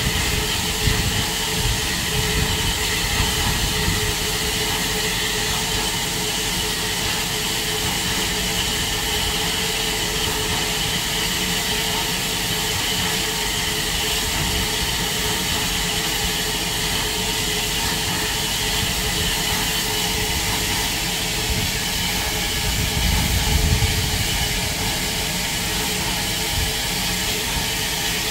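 Steam locomotive and train: a steady hiss and low rumble that swell briefly about twenty-three seconds in.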